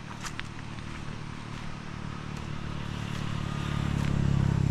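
An engine running steadily, growing louder toward the end, with a few light clicks and clatters over it.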